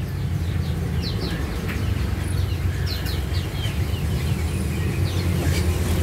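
Caged songbirds chirping: many short, high calls scattered throughout, over a steady low rumble.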